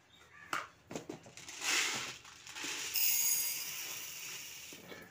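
Dry urad dal (minapappu) grains poured from a plastic jar into a steel tumbler, a steady hissing rattle of grains that starts about a second and a half in and fades near the end. A few light clicks come before the pour.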